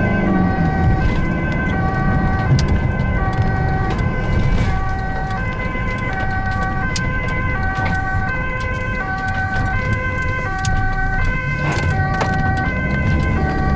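Ambulance two-tone siren (Visser) alternating between a low and a high tone, each held about three-quarters of a second, over the ambulance's engine and road noise. The engine drops off at the start and picks up again near the end.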